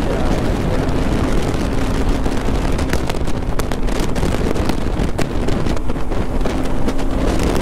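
Bajaj Pulsar NS200's single-cylinder engine running steadily while the motorcycle cruises, with wind buffeting crackling on the microphone.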